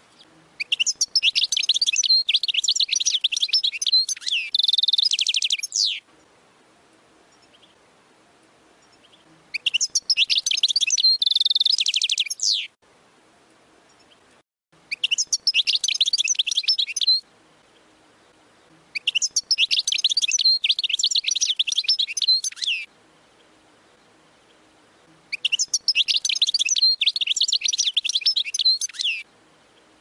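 European goldfinch singing in five bouts of fast, high twittering trills, each lasting three to six seconds, with short pauses between them.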